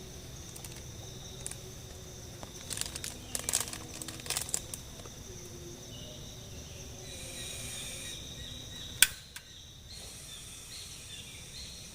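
Forest ambience with a steady, high-pitched insect drone. A cluster of crackles comes about three to four seconds in, and one sharp click about nine seconds in.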